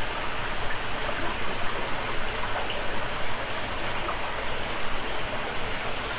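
Shallow creek water running and trickling over rocks, a steady rush of water.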